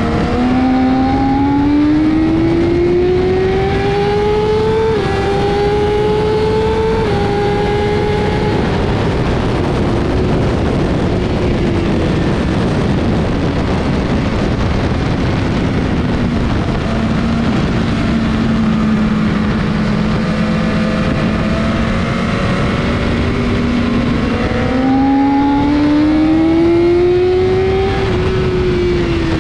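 BMW S1000RR sport bike's inline-four engine at full pace on a race track, under heavy wind rush: it pulls hard through two quick upshifts, then eases off and holds a steady note. Late on it accelerates again, then backs off near the end.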